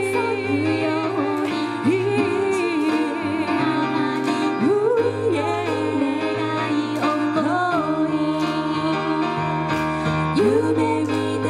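Live song: a woman's voice singing a melody with vibrato over a steady instrumental backing that includes plucked strings.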